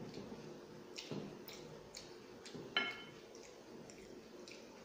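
Fingers mixing biryani rice and mutton on a glass plate, giving small wet squishes and scattered clicks. About three seconds in there is one sharper clink with a brief ring, as the glass plate is struck.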